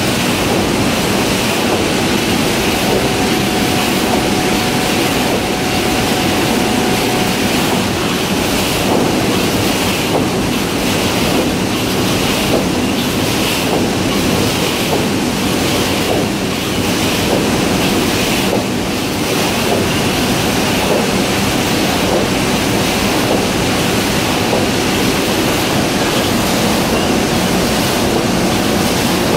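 Crabtree tin-plate printing press running, its rollers and sheet feed making a loud, steady, dense mechanical noise that holds even throughout.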